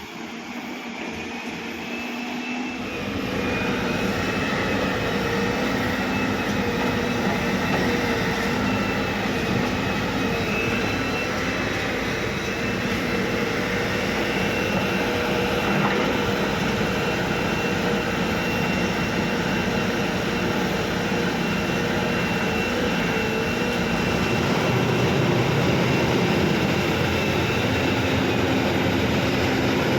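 Heavy diesel machinery running steadily, a deep rumble with a high whine over it, building up over the first few seconds.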